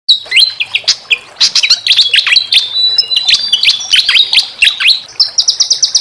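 Small songbird singing a fast, varied string of sharp chirps and steep downward-sweeping notes. Near the end it breaks into a quick run of about ten repeated notes a second.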